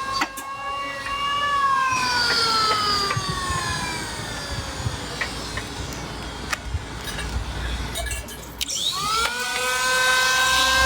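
Electric power tool motor whining at high speed, its pitch slowly sinking as it works, then cut off briefly near the end and spun back up quickly to a steady whine.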